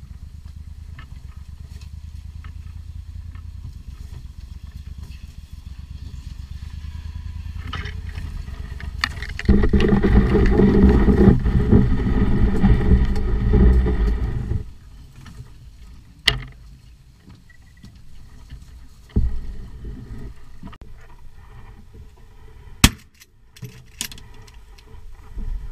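A boat's outboard motor runs at a low, steadily pulsing idle. It then throttles up loudly for about five seconds and cuts off suddenly. A few sharp knocks follow, the loudest near the end.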